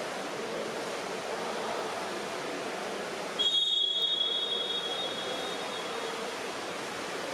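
Referee's whistle: one long, shrill blast about three and a half seconds in that lasts about two seconds, over a steady wash of background noise from the pool hall.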